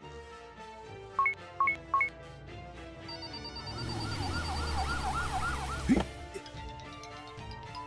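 Background music with a sound-effect emergency-vehicle siren, wavering fast over a low vehicle rumble. It grows in from about three seconds and cuts off suddenly near six seconds. Earlier come three short beeps.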